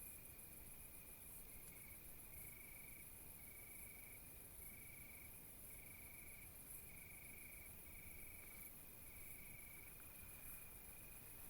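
Faint chorus of insects, crickets by the sound, in a night-time field recording: a steady high buzz with a lower trill pulsing on and off about once a second. No deer call is heard.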